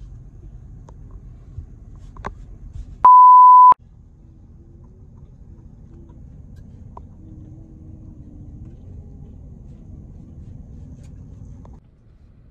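A single loud, pure beep of under a second, about three seconds in, edited into the soundtrack like a censor bleep; the other audio drops out under it. Around it, a low steady rumble inside the car.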